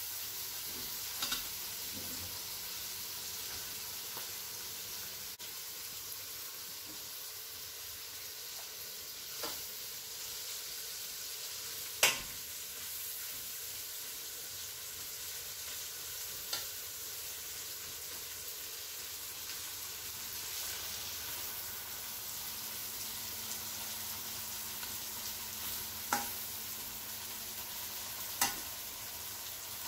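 Chopped onions and tomatoes sizzling steadily in hot ghee in an aluminium pan as the tomatoes cook down to soften. Now and then a metal spoon stirs them and clinks against the pan, about six times, the loudest about twelve seconds in.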